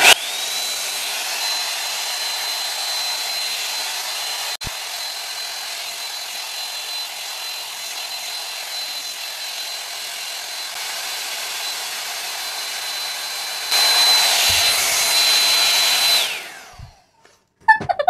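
5-in-1 hot air styler with a round brush attachment running: its fan motor spins up to a steady high whine over a rush of blown air. It grows louder near the end, then switches off and the whine falls away.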